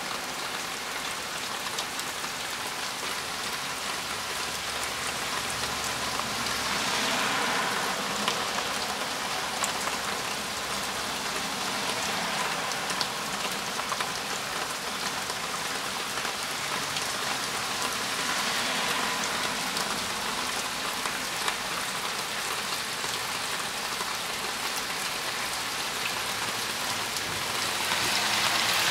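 Heavy rain pouring down steadily, swelling a little louder twice.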